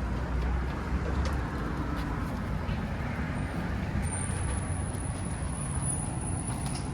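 Steady rumble of city traffic noise, with a faint thin high-pitched tone joining about four seconds in.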